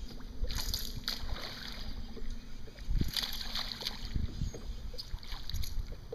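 A hooked bass splashing and thrashing at the water's surface as it is reeled in beside the boat, with the loudest bursts of splashing about half a second in and again around three seconds in.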